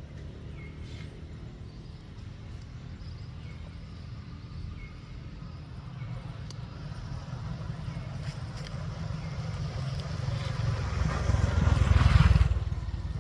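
A motor vehicle's engine rumbling, growing steadily louder and peaking near the end before dropping off sharply, with a few faint high chirps in the first few seconds.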